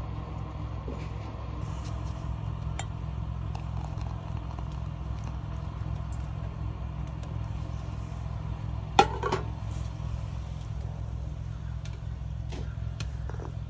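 A steady low engine hum, like a vehicle idling, runs throughout. About nine seconds in, enamelware gives one sharp clink with a brief ring as cocoa is served from an enamel pot into an enamel mug.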